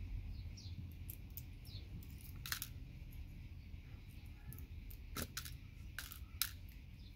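Faint, scattered small clicks and ticks of tiny metal pins and plastic connector pieces being worked and dropped as gold-plated pins are pried out of patch-panel connectors, over a low steady hum.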